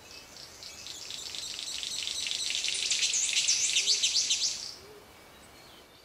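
Highland rainforest wildlife at dawn: a high, rapidly warbling call swells over about four seconds and fades out near the end, with soft low hoots about once a second underneath.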